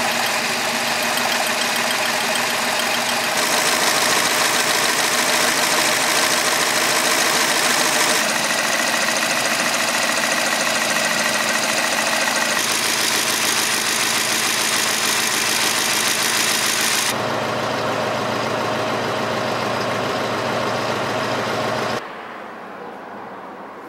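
Bugatti Type 49's straight-eight engine running at a steady idle. About 22 seconds in the sound drops sharply and fades away.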